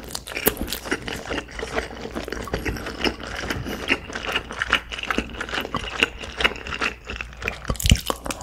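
Close-miked chewing of food, with many crisp crunches in quick succession and a louder crunch near the end.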